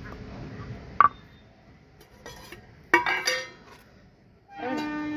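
Stone pestle grinding wet spice paste on a stone grinding slab, then two sharp knocks of stone as the pestle is worked and laid down across the slab. Near the end a steady, horn-like pitched tone begins.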